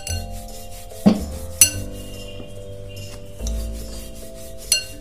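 Wooden rolling pin rolling out a stuffed potato paratha on a stone countertop: a low rubbing rumble, with three sharp knocks of the pin against the counter, two about a second in and one near the end. Soft background music plays underneath.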